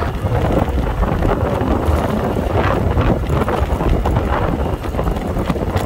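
Wind buffeting the microphone on a moving motor scooter, a steady loud rumble with the vehicle's running noise underneath.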